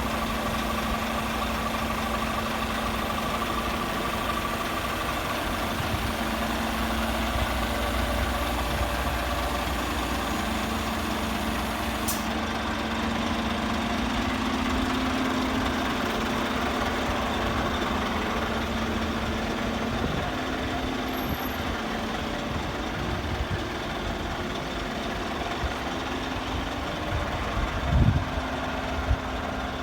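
Scania P400 truck's diesel engine idling steadily, with a constant low hum. A couple of short thumps near the end.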